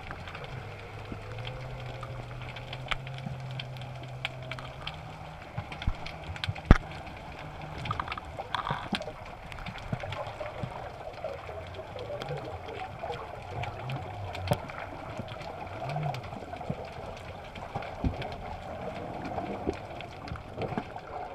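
Underwater sound picked up by a camera sitting on a rocky reef: a constant crackle of sharp clicks over a low hum that shifts in pitch in steps, with one sharper knock about seven seconds in.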